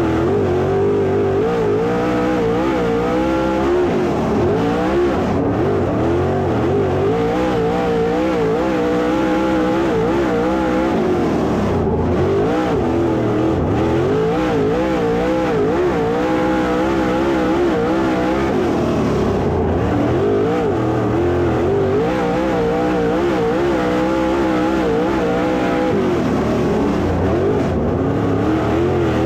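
Dirt late model race car engine at racing speed, its revs rising and falling over and over as the throttle lifts and opens, with a deeper drop every seven or eight seconds.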